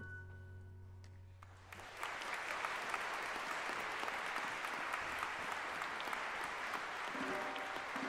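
The final chord of the piano accompaniment dies away, then audience applause starts about two seconds in and continues steadily. A few piano notes come in under the applause near the end.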